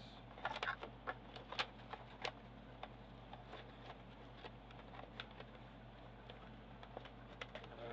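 Scattered light clicks and taps of a DVD box set's fold-out shoe display being handled, collapsed and packed back into its box, busiest in the first two or three seconds.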